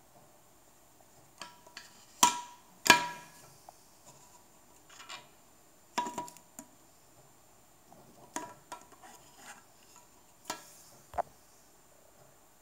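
Irregular sharp plastic clicks and knocks, about a dozen, from the hard plastic housing and circuit board of a Teltonika FM1000 OBD GPS tracker being handled; the two loudest come about two and three seconds in.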